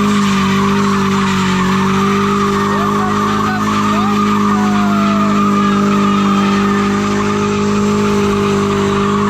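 A loud engine running at one steady, high pitch, held without revving.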